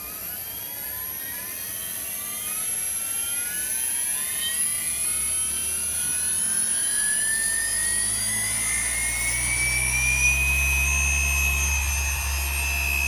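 Brushless DC motor of a homemade 36 V variable-speed water pump spinning up under a soft-start ESC. Its whine rises steadily in pitch and loudness and levels off at full speed about ten seconds in. A low rush of recirculating water builds up from about halfway.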